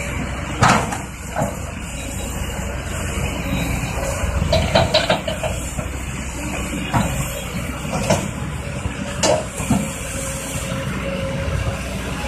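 Kobelco tracked excavator's diesel engine running steadily, with a series of sharp metallic clanks and knocks from the working machine: one loud one about a second in, a quick cluster around the middle, and several more later.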